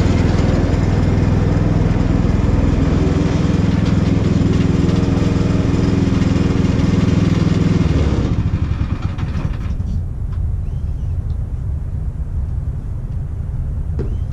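Petrol engine of a Woodland Mills portable bandsaw sawmill running steadily at high revs, then dropping to a lower, quieter idle about eight seconds in.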